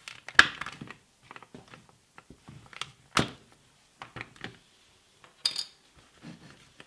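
Plastic housing of a Makita cordless drill being handled and worked loose on a wooden workbench. Sharp knocks come about half a second, three seconds and five and a half seconds in, the last one brighter, with lighter plastic clicks and rattles between them.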